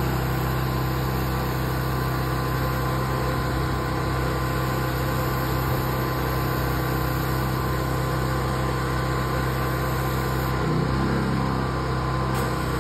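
Pressure washer running steadily, a constant machine hum under the hiss of a wand spraying straight water onto concrete.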